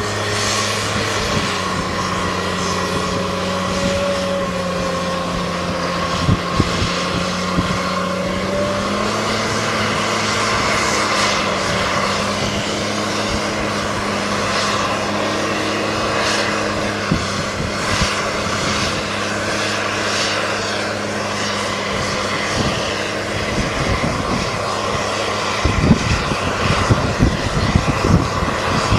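Tractor diesel engines running steadily under load while pushing and packing a corn silage pile, a continuous drone whose pitch rises slightly about nine seconds in. A few short thumps come near the end.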